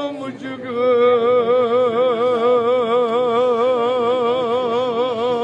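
A man's voice chanting an elegy: a brief opening sound, then from about a second in one long held note with an even, wavering vibrato, in the sung style of a Kashmiri noha recitation.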